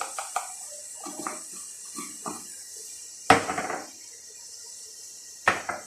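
Kitchen utensil sounds: a metal spoon clinking and scraping against a cooking pot, with a sharp clack a little past three seconds in and another near the end.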